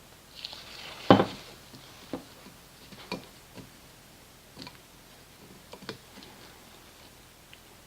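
Handling noises as a new rubber O-ring is worked down onto a Mercedes oil filter housing standpipe: one sharp knock about a second in, then a few scattered soft clicks and taps.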